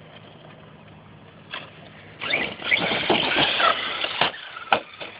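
Electric RC truck's brushless motor whining and revving under throttle for about two seconds, starting about two seconds in, followed by a few sharp knocks.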